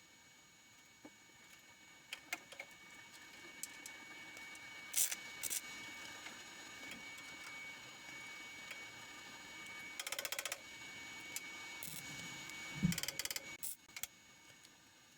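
Workshop tool noise: scattered sharp clicks and a few short bursts of rapid mechanical clicking, over a faint steady high whine.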